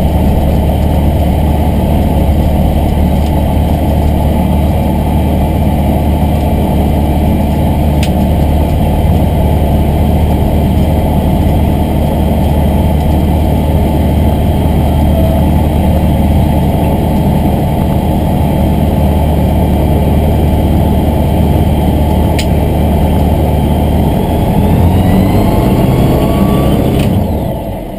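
Aeroprakt A22LS microlight's Rotax 912 flat-four engine and propeller running steadily at low taxi power, heard from inside the cabin. Near the end the engine note changes and the sound falls away.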